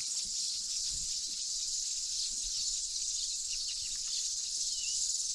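Steady, shrill, high-pitched chorus of wildlife in the bush, unbroken throughout, with one faint short bird chirp near the end.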